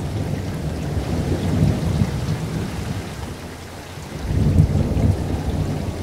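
Heavy rain beating down, with a deep rumble underneath that swells and fades. The rumble eases a little past the middle and builds again about four and a half seconds in.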